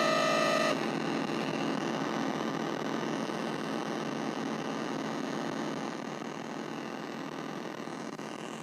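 Nova Drone analog drone synthesizer: a steady pitched drone with several overtones cuts off within the first second, leaving a grainy noise texture that slowly fades.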